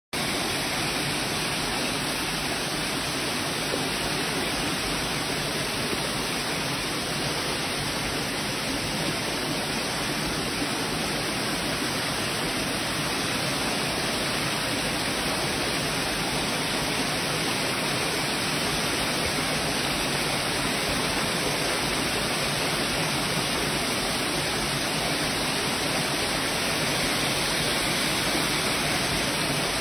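Steady rush of water from small cascades pouring over rocks into a stream pool.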